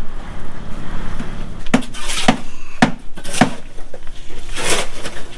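Four sharp knocks about half a second apart, a hard object striking wood or metal, followed near the end by a short scraping clatter.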